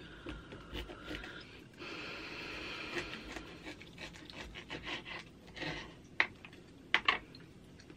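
Plastic knife and fork sawing through a barbecued pork chop on a wooden cutting board: scraping and rubbing, with a few sharp clicks of the utensils against the board about six and seven seconds in.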